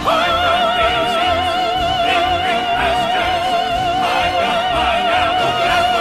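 An operatic soprano holds one long high note with a wide, even vibrato, scooping up into it at the start, over an orchestra.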